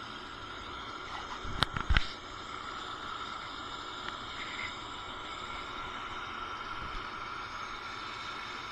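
Steady outdoor rush with a faint steady tone running through it, and a quick cluster of sharp knocks about two seconds in.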